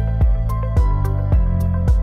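Background music with a steady, quick beat over sustained low notes.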